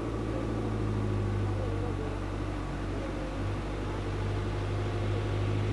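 Motor vehicle engine running at a steady speed with road noise, a constant low hum.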